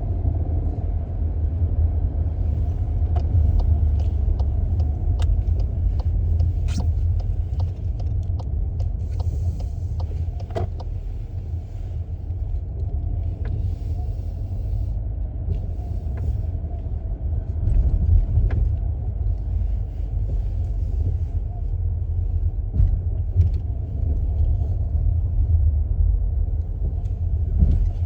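Steady low road and engine rumble inside a moving car, with scattered small clicks and knocks.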